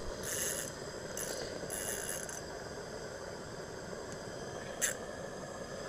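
Fishing reel working as a big hooked fish is fought up through an ice hole: quiet reeling with a few short, high buzzes in the first two and a half seconds and a sharp click near the end.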